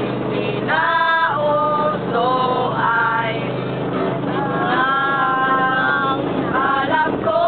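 A group of young men and women singing together, with long held notes, to a strummed acoustic guitar, over the steady low hum of a bus engine.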